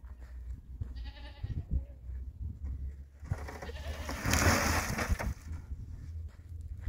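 A single short, wavering bleat from livestock about a second in, then a louder noisy rush of sound lasting about two seconds, over a steady low rumble.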